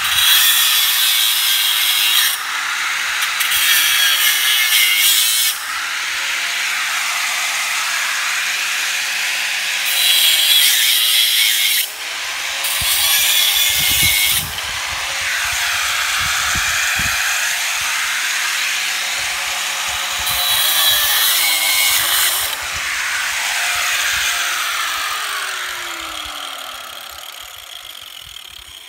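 Corded angle grinder cutting through the steel wires of a welded-wire hog panel. It comes in several louder, harsher stretches as the disc bites into the wire, with the motor's pitch sagging under load and recovering between cuts. Near the end the grinder is switched off and winds down.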